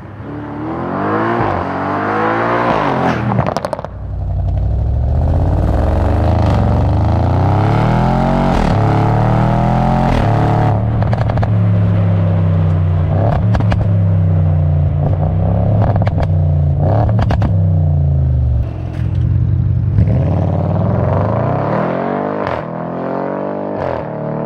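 Tuned Audi RS6 C7.5's 4.0-litre twin-turbo V8, breathing through a stainless APR cat-back exhaust, accelerating through the gears: the revs climb and drop several times, with a steadier stretch in the middle. A scatter of sharp pops and crackles sounds through that middle stretch.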